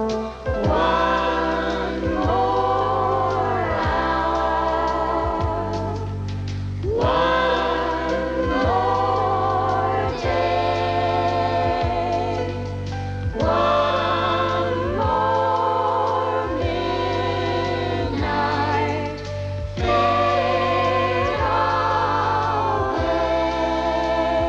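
A slow, gentle song sung by a group of voices together, with instrumental accompaniment underneath.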